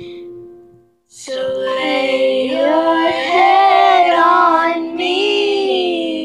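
A girl singing unaccompanied in long held notes with a wavering pitch. The voice breaks off for a moment about a second in, then carries on through a long phrase that fades near the end.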